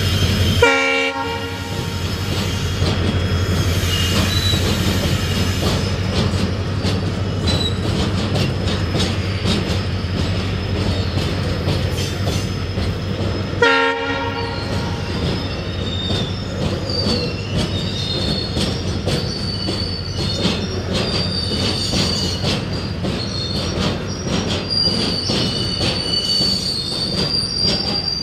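Tank-container freight train hauled by a WDG-4 diesel locomotive rolling past: the locomotive's engine hum drops away within the first second, then the wagons' wheels rumble and clatter over rail joints, with high flange squeal that grows steadier in the second half. Two short horn blasts, about a second in and again about fourteen seconds in.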